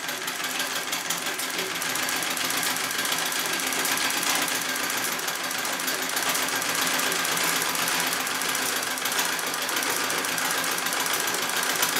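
Singer 66 treadle sewing machine running and stitching steadily in free-motion quilting, a fast even run of needle strokes. It picks up speed over the first couple of seconds, then holds a steady pace.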